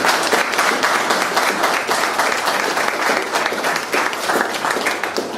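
Audience applauding: dense clapping from a crowd, easing off near the end.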